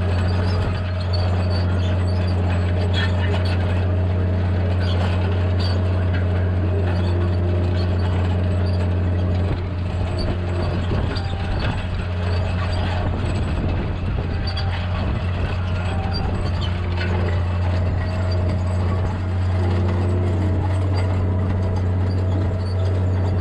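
Tractor engine running steadily under load while pulling a six-disc plough through rough, rocky ground. Scattered knocks and rattles sound over a constant low drone.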